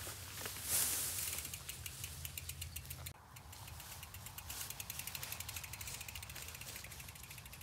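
Footsteps rustling through long grass, then the rapid, even ticking of a mountain bike's freewheel rear hub as the bike is pushed along without pedalling.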